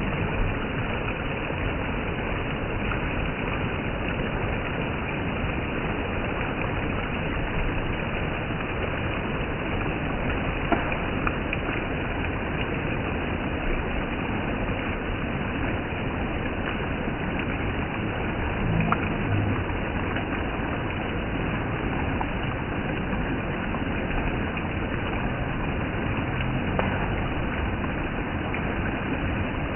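Steady rush of flowing water, an even noise that hardly changes.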